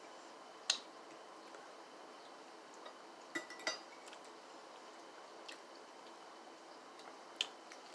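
A fork clinking against a plate of fried chicken: a few short, sharp clinks spread out, the loudest about a second in and near the end, with a pair near the middle.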